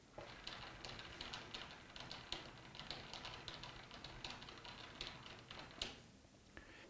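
Lathe cross-slide handwheel being cranked by hand, the slide's feed screw and handle giving a faint, fast run of light clicks and ticks as the cross slide is wound to its full forward position. It stops with a sharper click about six seconds in.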